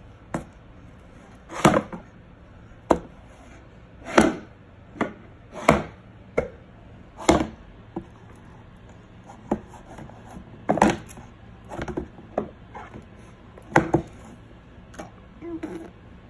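A baby's hands slapping and patting on a hardwood floor and toy stacking cubes: irregular sharp knocks, roughly one a second.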